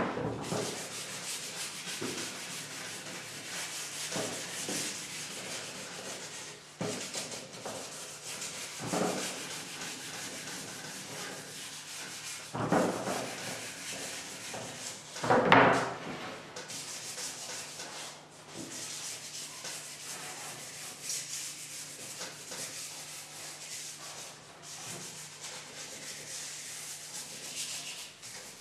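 Bentwood rocking-chair rails being hand-sanded with sandpaper: a continuous scratchy rubbing, with a few louder bumps, the biggest about 13 and 15 seconds in.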